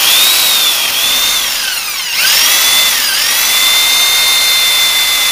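Electric drill spinning a Ford 400 V8's oil pump through a socket and extension to prime the rebuilt engine with oil. Its whine dips in pitch around two and three seconds in, then holds steady as the drill drags down under the load of the pump building oil pressure.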